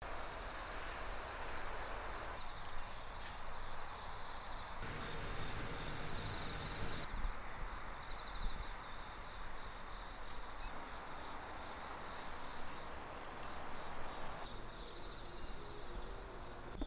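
Steady high-pitched chorus of insects calling together without a break, over a soft outdoor hiss that changes abruptly a few times.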